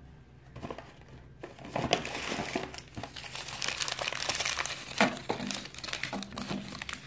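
Crumpled white paper wrapping crinkling and crackling as it is handled, starting about half a second in.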